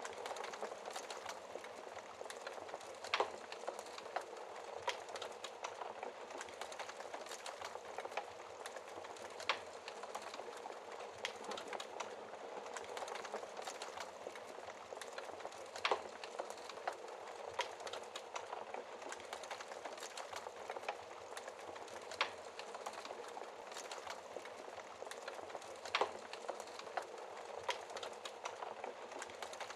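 Wood fire burning in a fireplace: a steady hiss with constant irregular crackling and a few louder sharp pops.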